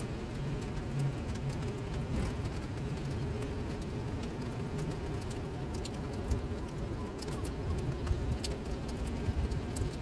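Steady rain falling into standing water on paving, a constant patter with many individual drops ticking sharply, over a low steady rumble.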